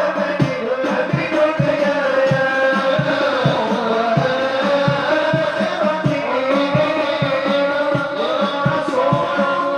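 Group of voices singing sholawat, devotional praise of the Prophet, to a steady beat of low hand-drum strikes, about two to three a second.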